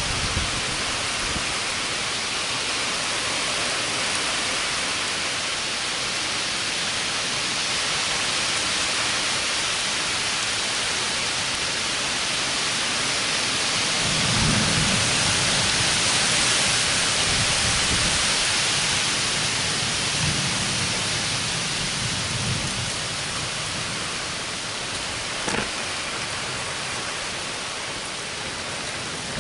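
Heavy rain falling steadily during a thunderstorm, with low rumbles of thunder twice in the middle.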